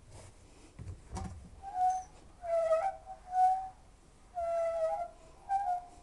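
Hoover W 420 washing machine squealing as its drum turns: about six short, high squeaks in an uneven run, after a couple of clicks about a second in. The squealing is the sign of broken drum bearings.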